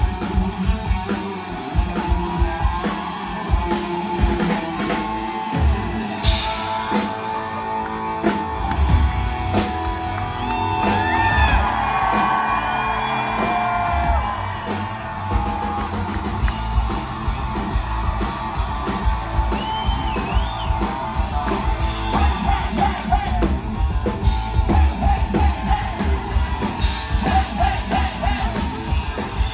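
Live rock and roll band playing loud, with electric guitars, bass and drums under singing. The bass and kick drum come in fuller about nine seconds in.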